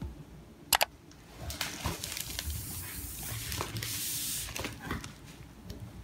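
Two quick clicks, then several seconds of crinkly rustling from plastic parcel packaging being handled, swelling to its loudest near the end.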